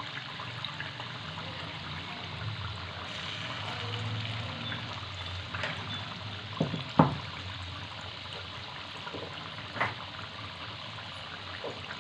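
Small wheat-flour and potato fritters deep-frying in hot oil in a kadai: a steady bubbling sizzle. A few sharp clicks cut through it, the loudest about seven seconds in and another near ten seconds.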